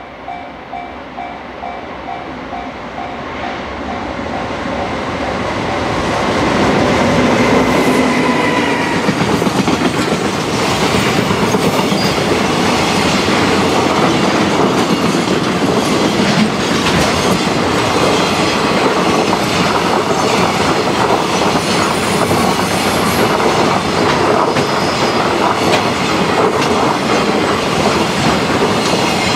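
JR Freight EF510 electric locomotive hauling a long container freight train, getting louder as it approaches over the first several seconds, with a faint whine as the locomotive goes by. Then the steady rumble and clickety-clack of the container wagons' wheels passing. A repeating ding about twice a second is heard at the start until the train drowns it out.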